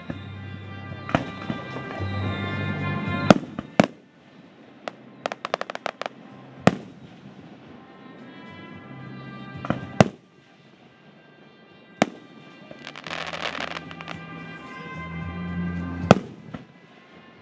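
Aerial fireworks shells bursting: sharp bangs every few seconds, a quick run of crackling pops about five seconds in, and a spell of crackle around thirteen seconds, with music playing underneath.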